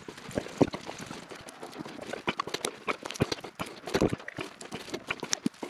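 Irregular clatter of sharp knocks and taps, several a second, some with a dull thud.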